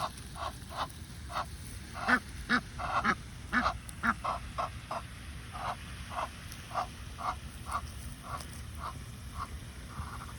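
Egyptian goose honking in a steady series of short, harsh calls, about two a second, loudest around two to four seconds in.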